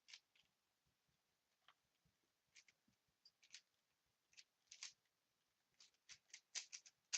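Faint clicks of a plastic puzzle cube being turned by hand, scattered at first and then a quick run of turns near the end.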